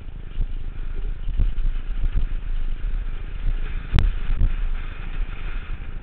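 Wind rumbling on a helmet-mounted camera as a downhill mountain bike rattles down a rough dirt trail, with repeated knocks from bumps. The loudest is a sharp knock about four seconds in.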